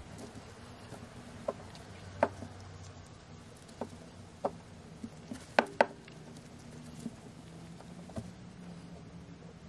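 Light handling sounds from polishing a steel hammer head with a cloth in gloved hands: a scattered run of short clicks and taps, about eight in all, the sharpest two close together a little past halfway, over a faint low hum.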